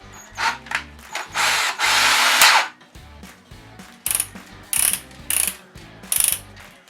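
Ryobi R18DD3 cordless drill's torque-setting collar being turned by hand, clicking detent by detent through its clutch settings: a quick run of clicks, then a few separate clicks.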